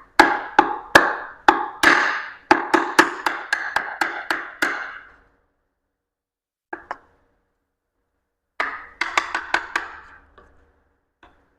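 Hammer taps on the oil pump of a Mazda B2200 engine, knocking it loose. Each sharp strike leaves a short ringing tone. A run of about fifteen strikes speeds up to about four a second, then comes a lone tap and a second, shorter run.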